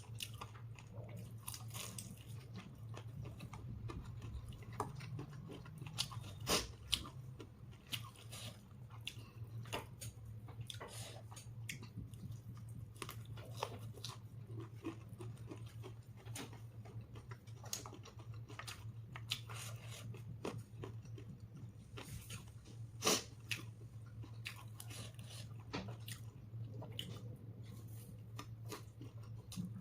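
Close-up chewing and crunching of a person eating a KFC meal with crispy fried chicken, with many small crunches and wet mouth sounds and two louder crunches, about six and a half and twenty-three seconds in. A steady low hum runs underneath.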